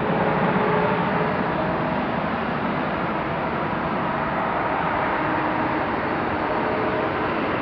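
Airbus A380-800's Engine Alliance GP7200 turbofans running at taxi power as the airliner rolls slowly by: a steady jet rumble and hiss with a faint steady whine.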